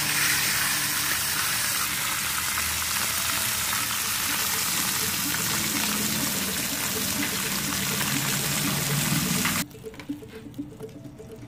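Panfish fillets sizzling as they pan-fry in a nonstick frying pan, a steady hiss that cuts off suddenly near the end.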